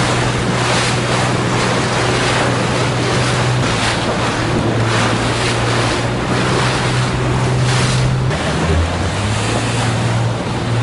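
Water rushing and splashing as boats move fast through choppy sea, in repeated surges, with wind buffeting the microphone. Under it runs a steady motorboat engine drone that shifts pitch about a third of the way in and again near the end.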